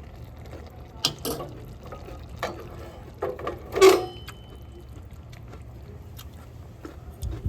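A pan sauce simmering in a skillet, with a utensil knocking and scraping against the pan several times. The loudest knock, about four seconds in, rings briefly like metal.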